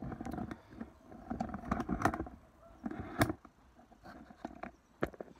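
Handling noise from a phone tripod being lengthened and adjusted: clicks, knocks and scraping, with sharp knocks about two and three seconds in and again near the end.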